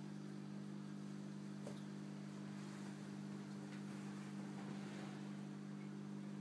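Steady low hum of running aquarium equipment, with a few faint ticks over it.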